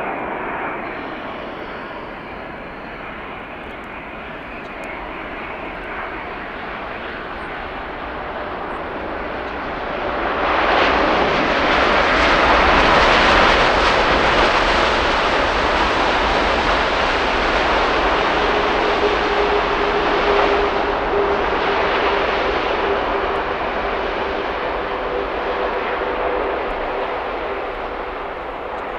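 Boeing 787-9's Rolls-Royce Trent 1000 jet engines on a landing: a steady engine sound on final approach, then about ten seconds in a loud surge of reverse thrust after touchdown that holds for about ten seconds, with a steady tone coming in partway through. It eases off as the airliner slows on the rollout.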